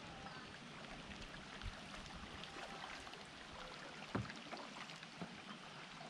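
Small waves lapping and gurgling against the plastic hull of an Old Town Sportsman 106 kayak, with scattered light ticks and one louder knock about four seconds in.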